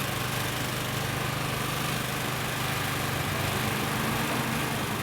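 A motor running steadily: a constant low hum under an even hiss, with no change in speed.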